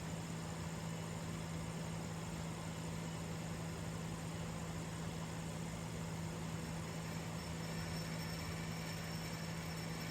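Air compressor running steadily, a constant even hum with no change in pitch or level.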